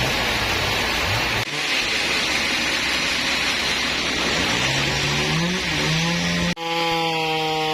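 Engine-driven saw running while cutting trembesi (rain tree) timber, its engine pitch sagging and recovering as it works. The sound breaks off abruptly twice, about a second and a half in and near the end, then comes back at a steadier pitch.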